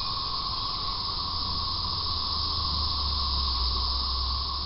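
Steady background hiss with a low rumble underneath that swells in the middle and eases near the end.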